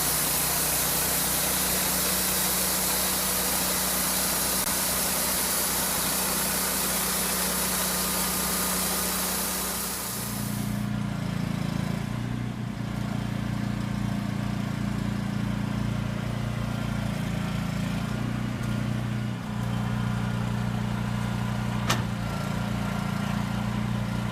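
An engine running steadily with a rumbling note, under a high hiss for the first ten seconds; about ten seconds in the hiss drops away and the engine note changes, and a single sharp click comes near the end.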